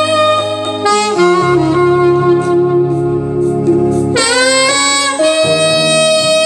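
Saxophone playing a slow melody in long held notes, with an upward scoop into a higher note about four seconds in.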